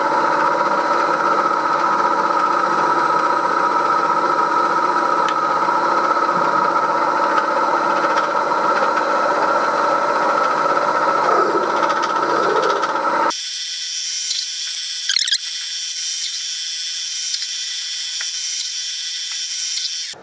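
Milling machine running with a steady whine of several tones while a centre drill cuts bolt holes in a cast iron cover. About two-thirds of the way through, the lower part of the sound drops out abruptly, leaving only a high hiss and squeal.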